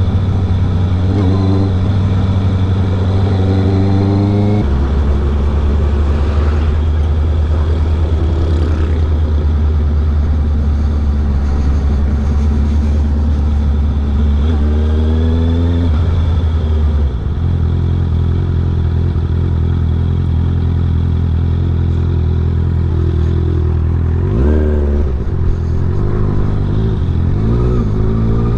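Honda CB650R inline-four with an R11 aftermarket full exhaust, loud, running under way. The engine note steps to a new pitch about four seconds in, around seventeen seconds and again near twenty-five seconds, with rising revs in between. Wind blows on the microphone.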